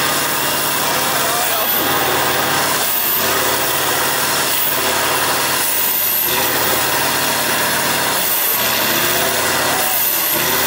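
Tatra 815 6x6 trial truck's diesel engine running, with its pitch rising and falling in the last few seconds.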